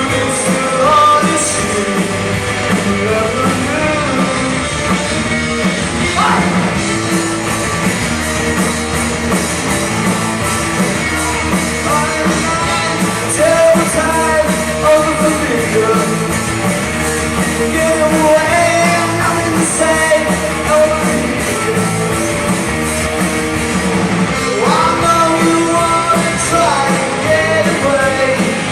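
Live rock band playing a song with a lead singer over the full band.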